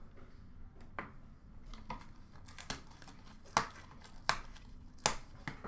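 Hands handling a plastic card holder and card-pack packaging: a string of sharp clicks and crinkling rustles, about seven in all, the loudest about three and a half seconds in.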